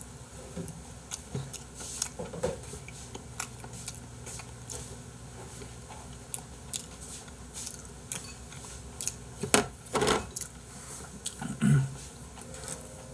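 Eating sounds: chewing, with light clicks and taps of metal chopsticks on a plate and bowl, and a couple of louder knocks near the end.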